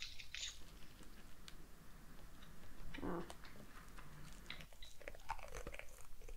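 Biting and chewing a hard fugashi, a dried wheat-gluten stick coated in brown sugar, in small irregular crunches. A brief murmured voice sound comes about three seconds in.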